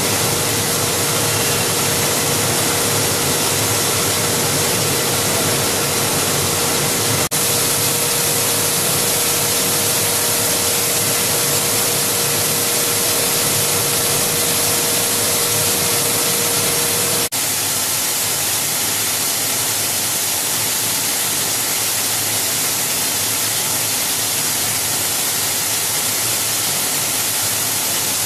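Steady, dense machine noise of a running plastic recycling and pelletizing line, its motors and centrifugal blowers going together. A steady hum runs in the noise and drops out after a brief break about two-thirds of the way in.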